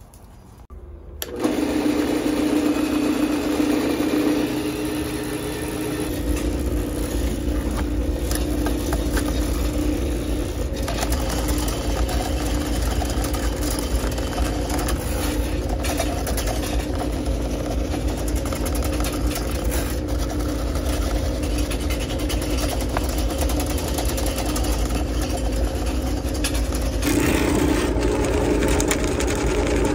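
Electric drain-cleaning machine motor starting about a second in and running steadily as it spins a 5/8-inch snake cable into a 2-inch kitchen drain line clogged with hard grease. Its sound shifts and grows louder near the end.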